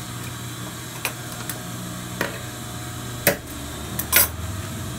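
Idling industrial sewing machine's motor giving a low steady hum, with a few sharp clicks and knocks as the fabric and scissors are handled at the machine table, the loudest about three and four seconds in.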